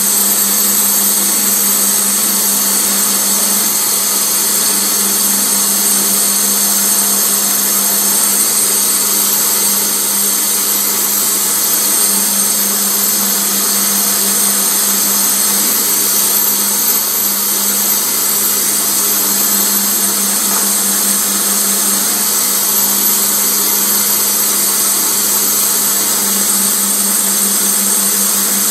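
Electric bench polishing motor running steadily with its buffing wheel spinning while a piece of amber is polished against it: a constant hum with a high hiss over it.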